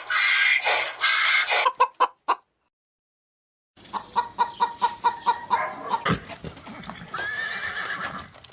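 Harsh, noisy screeching calls that stop about two and a half seconds in. After a second of silence, a chicken clucks in a quick run of short notes, ending in a longer drawn-out call.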